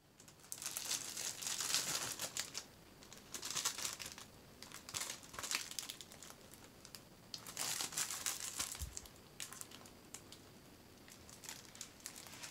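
Clear plastic wrapping crinkling in four main bursts as a tablet in its case is handled inside the bag, with lighter scattered crackles near the end.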